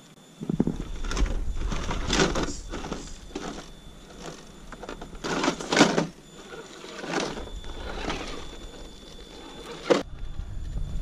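Axial SCX10 radio-controlled rock crawler driving over loose rubble: stones and gravel crunching and clattering under its tyres in a series of short bursts, with the small electric motor and gears whirring. The sound changes abruptly about ten seconds in.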